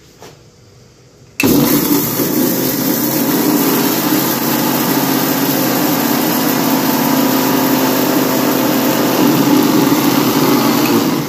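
Electric mixer grinder dry-grinding roasted whole spices in its small stainless-steel jar. The motor is switched on about a second and a half in and runs loud and steady.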